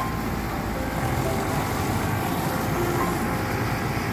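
Diesel engines of several farm tractors running together under load, pulling a heavily loaded sugarcane trolley: a dense, steady engine noise.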